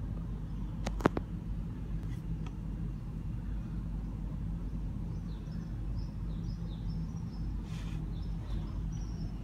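Outdoor background ambience: a steady low hum of distant traffic, with faint, short high bird chirps in the second half and a few sharp clicks about a second in.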